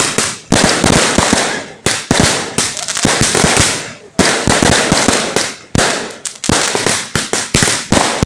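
Firecrackers and fireworks going off in quick, irregular succession: many sharp bangs, several a second, with dense crackling between them.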